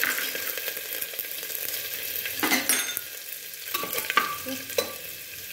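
Garlic cloves and whole spices sizzling in hot oil in an aluminium pressure cooker, the hiss loud at first and slowly dying down. A few short scrapes of a spoon stirring the pot come about halfway through and near the end.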